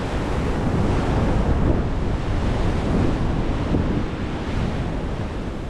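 Wind buffeting the microphone over the steady wash of ocean surf, easing slightly near the end.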